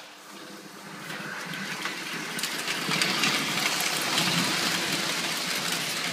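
Lionel O-gauge toy steam locomotive running on three-rail tinplate track, a steady clatter of wheels and motor that grows louder over the first three seconds, then holds.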